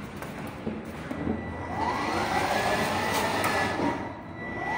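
Battery-powered ride-on toy car's electric drive motor and gearbox whining as it drives. The pitch rises about a second in as it speeds up, holds, drops away just before four seconds, then rises again at the end. The car is running again after its charging fault was traced to a lost connection.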